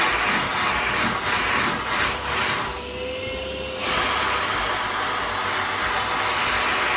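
Small shop vac running, its narrow floor nozzle drawn over damp carpet tiles to suck out leftover shampoo suds. The suction sound briefly dulls about three seconds in, then comes back full.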